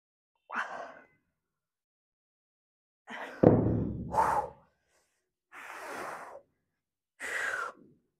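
A man breathing hard after a heavy dumbbell shoulder set: four loud gasping breaths with pauses between them. The loudest comes about three and a half seconds in and starts with a sudden thud.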